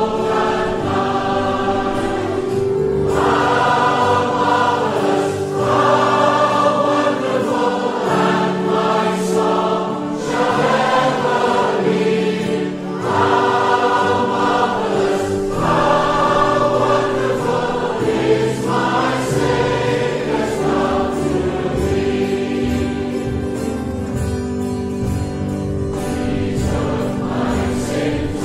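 A choir singing a hymn, several voices holding long notes in phrases of a few seconds each.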